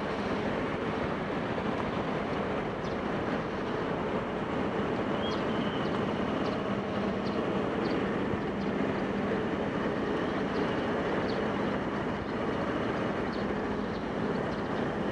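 Motorcycle engine running steadily as the bike cruises at an even speed, with a constant rush of road and wind noise.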